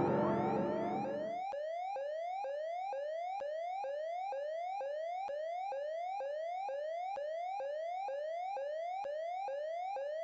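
Electronic fire alarm sounder sweeping rapidly upward in pitch, over and over, at about two rising sweeps a second.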